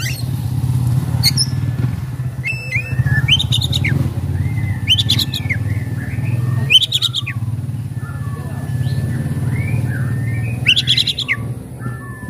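Oriental magpie-robin singing: a run of loud, sharp chattering phrases about every second or two, with thin whistled notes between them. A steady low hum, like a motor running, carries on underneath.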